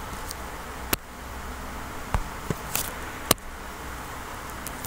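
A handful of short, sharp taps, about five in a few seconds, over a steady background hiss: a fingertip tapping on a smartphone's touchscreen.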